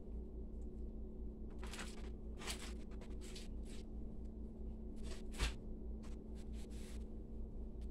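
Quiet kitchen room tone: a steady low hum, with faint intermittent rustling and a single sharper click about five and a half seconds in.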